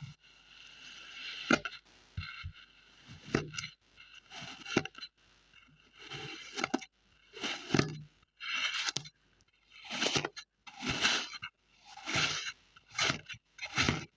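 Kinetic sand being crushed and scraped: a longer scrape at first, then a series of short crunchy strokes coming about once a second.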